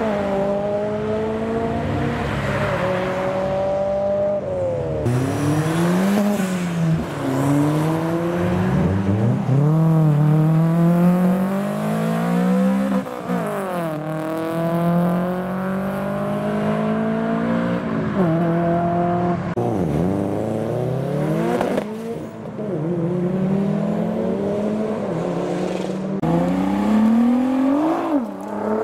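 Modified cars accelerating hard away one after another, their engines revving up through the gears, with the pitch climbing and dropping again many times.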